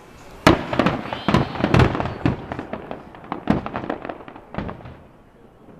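Aerial fireworks shells bursting: a sharp bang about half a second in, then a rapid string of bangs and cracks that thins out and fades near the end.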